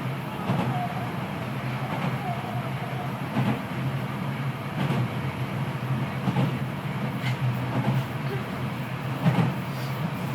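Kita-Osaka Kyuko 9000 series electric train running between stations, heard from the car floor above the running gear: a steady low hum and rumble, with a knock from the wheels every second or two.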